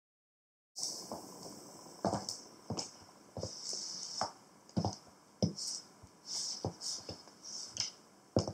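Stiletto heels of ankle boots clicking on a hard plank floor in walking steps, starting about a second in, with short bursts of high hiss between the steps.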